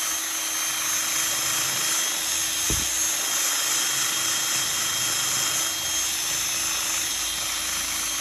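Handheld power sanding tool running steadily at constant speed, sanding out an undersized hole so a new spindle will fit.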